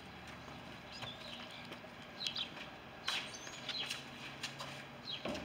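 A small bird chirping, with short, quickly falling chirps repeated every second or so over faint outdoor background noise. A couple of brief knocks come about three seconds in.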